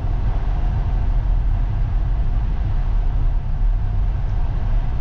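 ACE Forma DI 550 tractor's Kirloskar diesel engine running steadily on the move, a continuous sound with most of its weight low in pitch.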